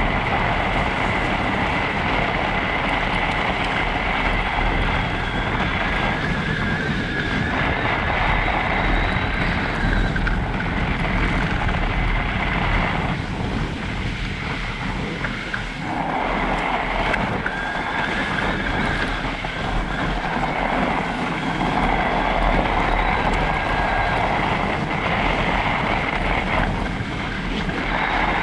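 An electric mountain bike riding over packed snow: a steady rush of tyres on snow and wind on the microphone, with the motor's high whine fading in and out and dropping away for a few seconds about halfway through.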